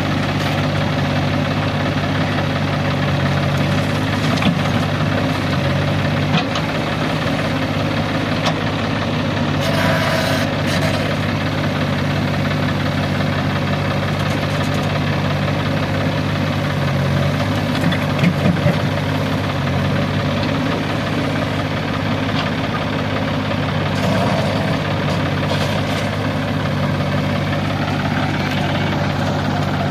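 Diesel engines of a JCB 3DX backhoe loader and a John Deere tractor running steadily at idle, a constant low drone. There is a short rush of noise about ten seconds in and a few light knocks a little past halfway.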